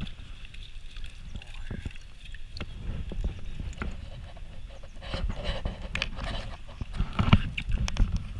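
Close handling noise on a chest-mounted action camera: jacket rustling and knocks of the landing net's frame against the body while a brown trout is netted, with water sloshing. The handling gets busier in the second half, with the loudest knock a little after seven seconds in.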